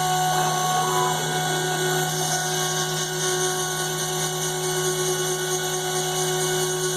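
CNC router spindle running at a steady speed, a constant whine with several fixed tones over a high hiss.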